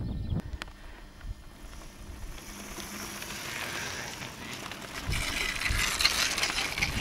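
Mountain bike tyres crunching and crackling over a loose gravel track, growing louder as the bike comes close and loudest over the last two seconds. Wind buffets the microphone at the start and again near the end.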